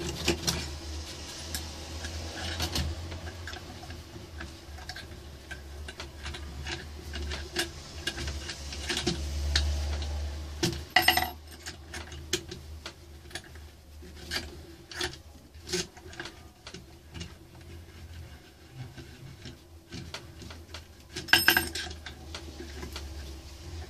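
Wooden parts of a homemade lathe being fitted and bolted together by gloved hands: scattered small clicks, taps and scrapes of metal on wood. There are two louder knocks, about eleven seconds in and again near the end, over a low steady hum.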